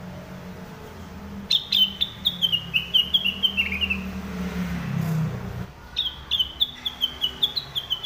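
Cucak wilis (orange-spotted bulbul) singing: two quick phrases of clear whistled notes, each stepping down in pitch. The first phrase starts about a second and a half in, the second about six seconds in. A low rumble underneath stops about halfway through.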